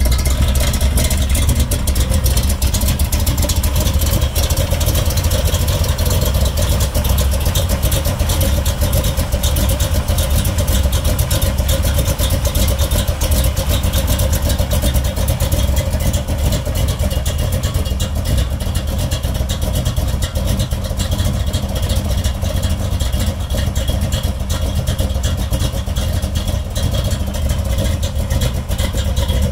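AMC 401 V8 idling through Flowmaster exhaust with a choppy, lumpy idle: the exhaust note pulses unevenly at a steady low engine speed, with no revving.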